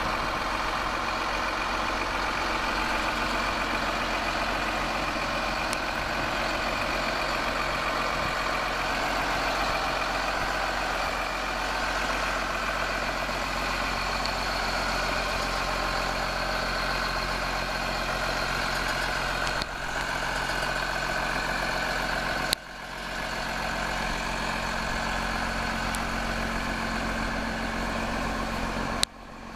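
Case IH MX270 tractor's diesel engine running steadily at an even idle. A few sharp clicks with brief dips in level break it in the second half.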